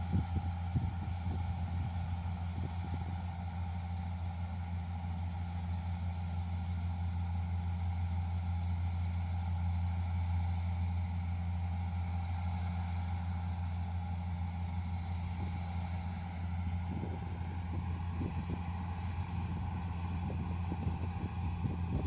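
Yanmar YH470 combine harvester running steadily while harvesting rice: a constant low engine drone with a steady higher whine above it, and some faint clatter near the end.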